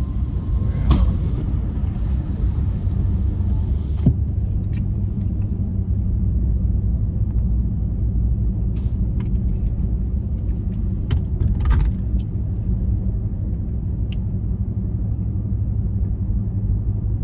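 Steady low road and engine rumble of a car driving, heard from inside the cabin, with a few short faint clicks scattered through it.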